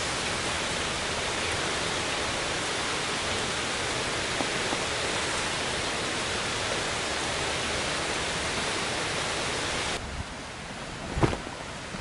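Steady rushing of falling water from a nearby waterfall. It cuts off about ten seconds in, leaving a quieter background with a sharp thump.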